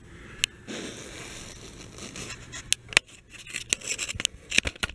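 Handling noise from a handheld camera being repositioned: a soft rustling scrape, then a run of sharp, irregular clicks and taps over the last two seconds.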